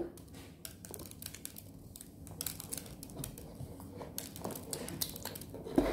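Irregular small clicks and crinkly rustling from close handling near the microphone, with a brief louder knock or bump near the end.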